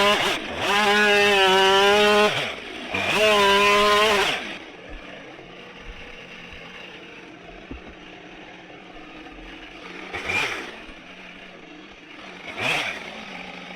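Husqvarna 572 XP two-stroke chainsaw running at full throttle in three bursts, its pitch sagging and recovering at the ends of each. The saw falls away about four and a half seconds in, and two short noises follow later.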